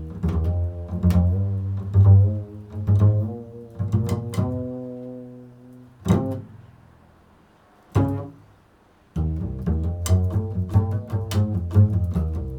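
Solo improvised bass playing: low plucked string notes. A long note rings and fades away in the middle, there is a short pause, then a quicker run of notes starts about nine seconds in.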